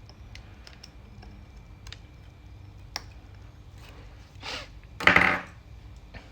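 Light clicks and taps from handling small laptop parts and tools during reassembly of a MacBook Pro. A brief, louder burst of handling noise comes about five seconds in.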